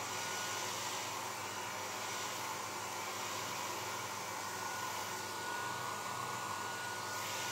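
Handheld hair dryer running steadily, blowing through a kitchen strainer fitted over its nozzle as a makeshift diffuser. A thin, steady whine sits above the even rush of air.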